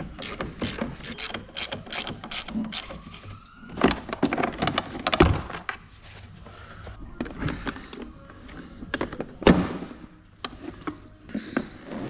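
Hand ratchet clicking rapidly, about four clicks a second, as the air-filter housing's bolts are undone, followed by knocks and thuds of the plastic airbox being lifted out of the engine bay and the filter pulled from it.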